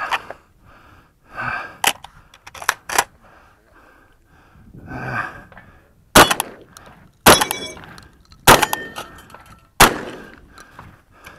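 A Stoeger M3K 12-gauge semi-automatic shotgun fires four shots, a little over a second apart, in the second half. A metallic ring follows the second and third shots, from steel targets being hit. Before the shots come clicks and clatter of the shotgun being handled.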